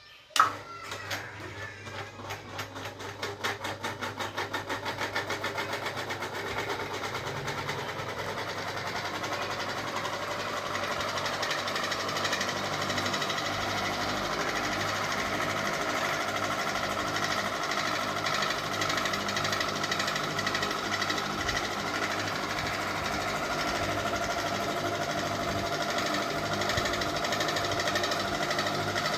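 Ceiling fan starting up: a sharp click about half a second in, then a rhythmic beat that quickens over the first few seconds as the blades gather speed, settling into a steady whir that slowly grows louder.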